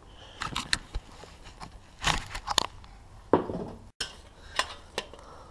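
A string of short metallic clinks and knocks, some ringing briefly, from Honda CRF250R engine parts being handled and moved during teardown.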